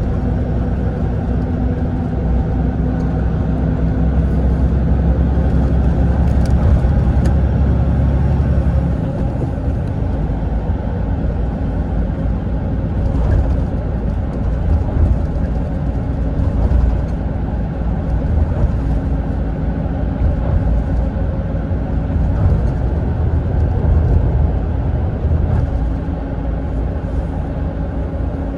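Mitsubishi Fuso Aero Ace coach on the move, heard from inside the passenger cabin: steady diesel engine drone with road and tyre rumble. The low engine tone changes about nine seconds in.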